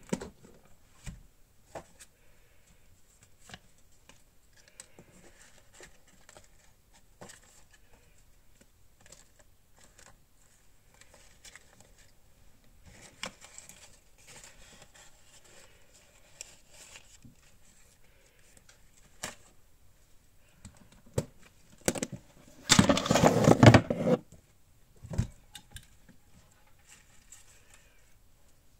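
Hands handling metal-framed storage boxes and rummaging through paper scraps: scattered sharp clicks and taps from the box frames and hinges, soft rustling of paper, and one loud burst of paper rustling lasting about a second roughly three-quarters of the way through.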